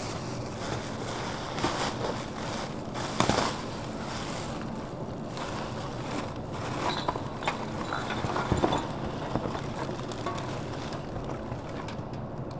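Plastic bin bags and carrier bags rustling and crinkling as gloved hands rummage through a large plastic wheeled bin, with the loudest crinkles about three seconds in and again past eight seconds, over a steady low background rumble.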